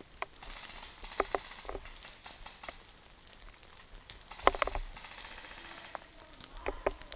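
Rustling and crunching of clothing and snow with scattered sharp clicks and knocks as a kneeling player shifts about and handles his gear; the loudest cluster of knocks comes about halfway through, with a few more near the end.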